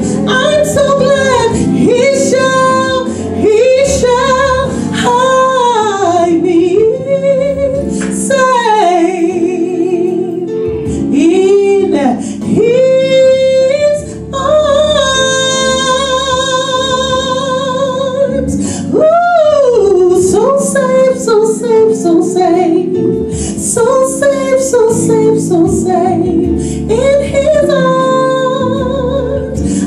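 A woman singing a solo into a handheld microphone over a steady instrumental backing. Her line has sliding runs and, about halfway through, a long held note with vibrato.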